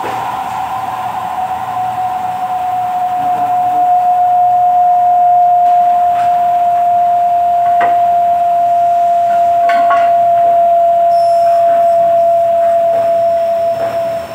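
Horizontal milling machine running with a steady high whine that drifts slowly lower in pitch, growing louder a couple of seconds in as the cutter works a metal profile, with a few faint clicks over it.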